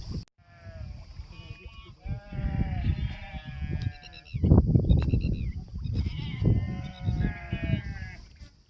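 Farm animals bleating: several long, quavering bleats of about a second each, over a low rumbling noise.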